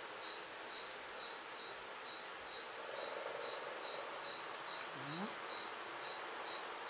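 A cricket chirping steadily in the background: a fast, even, high-pitched pulsing. There is a single light tick a little after halfway.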